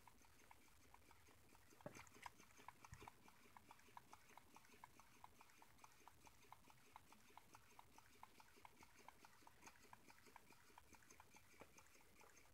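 Faint, even ticking of a homemade Stirling engine running, about four light clicks a second from its crank and linkage as the flywheel turns. A few louder knocks come about two seconds in.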